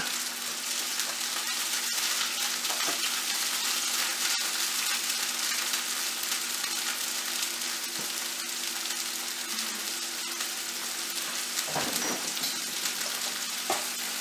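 Chopped onion and minced garlic sizzling in hot oil in a frying pan: a steady frying hiss, with a few light utensil knocks, the clearest near the end.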